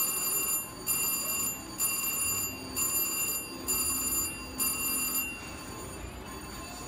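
Slot machine giving a repeated electronic bell chime, about one ring a second, that stops about five seconds in, leaving steady casino background noise.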